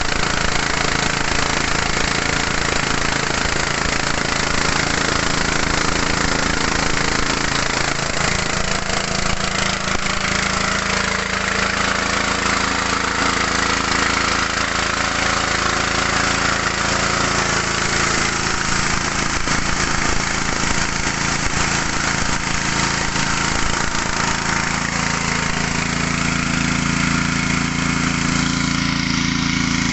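Small single-cylinder petrol engine of 6.5–7 hp running steadily, driving a mini rice huller and polisher. Its tone shifts slightly a couple of times.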